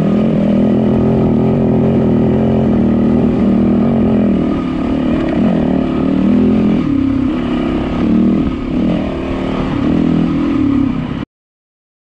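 Yamaha WR450 dirt bike's single-cylinder four-stroke engine running under load as it climbs a trail, the throttle opening and closing more from about four and a half seconds in. The sound cuts off abruptly about a second before the end.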